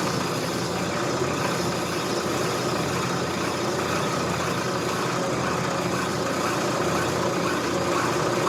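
Brake lathe running steadily at a turned-down speed, turning a C6 automatic transmission clutch backing plate while the tool takes a light cut. The motor and drive give a constant hum with several steady tones over an even machining noise.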